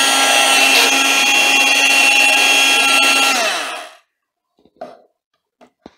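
Electric hand mixer's motor running steadily, then switched off about three seconds in and winding down with a falling pitch to a stop, followed by a few faint handling knocks. The mixer is running on test after its broken power cord was reconnected, and it works.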